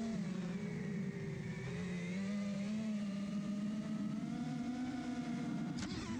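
FPV quadcopter's electric motors and propellers humming steadily, the pitch wavering as the throttle is eased up and down. Near the end the sound breaks and jumps higher as the throttle is punched while the quad tips over.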